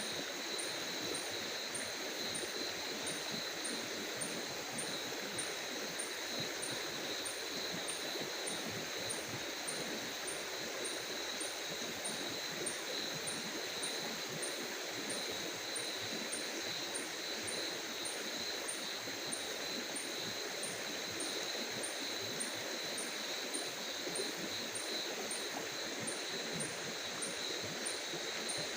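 Night insect chorus: a steady high trill, with another insect chirping faintly and evenly about three times every two seconds.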